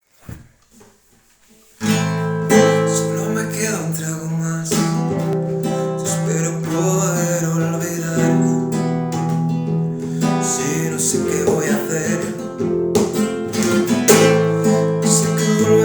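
Instrumental intro of a song: acoustic guitar strumming over held low accompaniment, starting about two seconds in.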